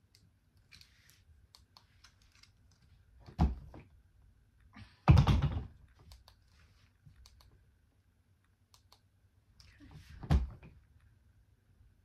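Small clicks and rattles of a handheld luggage scale's hook and strap on a hard-shell suitcase handle, with three dull thumps as the suitcase is lifted and shifted. The loudest thump comes about five seconds in.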